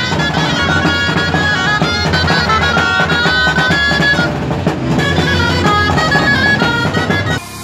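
Dulzaina, a loud Spanish double-reed shawm, playing a lively folk tune with a snare drum beating alongside, the traditional music for dancing parade giants. The music cuts off abruptly just before the end.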